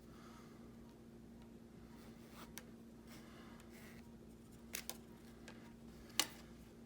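Releasable plastic zip tie being handled and unlocked by hand: a few faint scattered clicks, the sharpest near the end, over a steady low hum.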